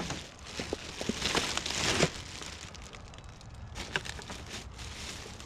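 Rustling and crinkling of trash being handled, loudest in the first two seconds, followed by a few sharp clicks.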